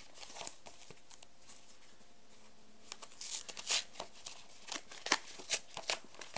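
A mail package being torn open by hand: a few faint clicks, then from about halfway a run of sharp tearing and crinkling of the packaging.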